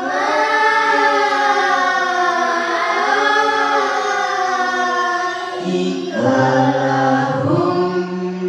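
Qur'anic recitation chanted in long, held melodic phrases whose pitch slowly bends up and down. A little past halfway a lower male voice comes in alongside it.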